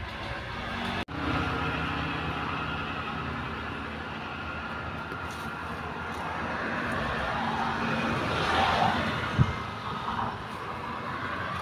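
A steady engine drone, carrying on throughout, with a sudden brief dropout in the sound about a second in.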